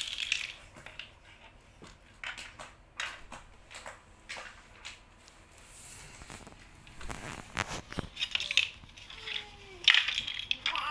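Small plastic toys being handled: irregular clicks, taps and clatters of toy pieces knocking together, busier near the end.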